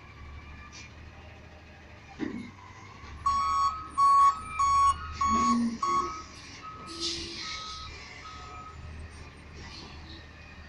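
A garbage truck's backup alarm beeps about one and a half times a second over the low, steady rumble of its engine. About five loud beeps come first, then the beeps go fainter for a few more, with a short hiss of air around the middle.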